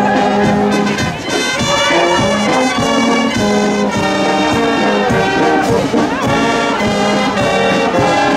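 Brass music, trumpets and trombones playing a tune over a steady beat.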